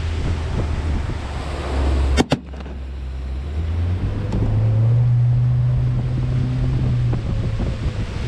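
A single sharp rifle shot about two seconds in, over the steady hum of a small boat's outboard motor. The motor runs faster and higher in pitch from about four seconds in, easing back near the end.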